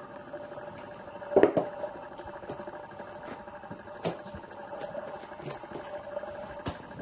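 Cardboard box being opened by hand: flaps scraping and tapping in many small scratchy clicks, with a louder knock about a second and a half in and another about four seconds in, over a faint steady hum.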